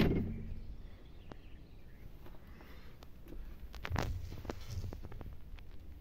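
Scattered light knocks and rattles of someone moving about inside a GAZ-66 truck's steel cab, with a louder cluster of knocks about four seconds in. The tail of a cab door shutting fades at the very start.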